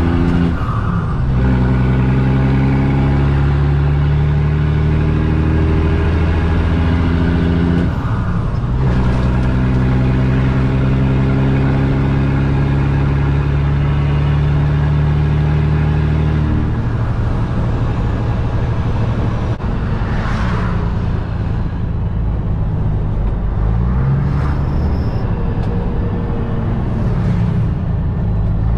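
Straight-piped Caterpillar C15 diesel in a Kenworth T800 pulling up through the gears of a 10-speed transmission, its note rising steadily through each gear with breaks for upshifts about a second in and about eight seconds in. Past the middle the engine settles into a lower, steadier note, with a few brief dips near the end, heard from inside the cab.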